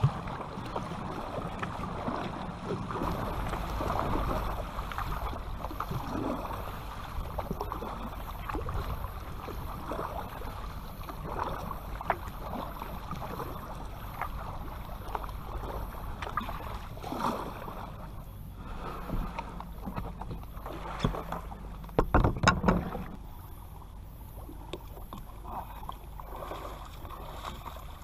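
Kayak being paddled: paddle blades dipping and water splashing and rushing along the hull in soft repeated surges, with a cluster of loud knocks a little over twenty seconds in.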